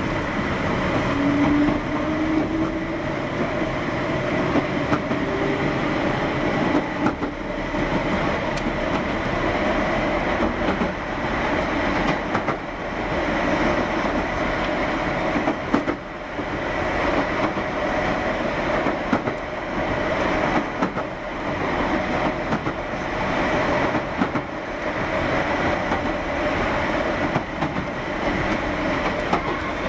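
Keihan 600 series electric train running, with a whine that rises in pitch over the first few seconds as it picks up speed. Steady running noise and wheel clatter over the rail joints follow.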